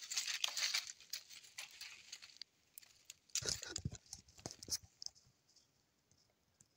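Close rustling and scraping of a phone being handled and propped up against something to film, with a few knocks around three and a half to five seconds in, then near silence.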